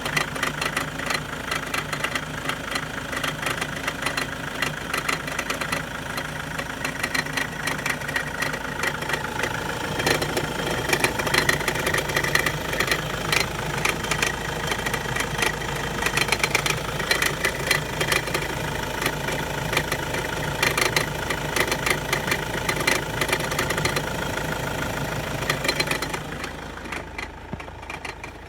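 Toyota Avensis diesel engine running, with a quick, repeated metallic dinging over it. The owner suspects the timing-belt tensioner pulley, an accessory-belt pulley, the valves or a leaking injector, and the dinging goes away at higher revs. It gets quieter about 26 seconds in.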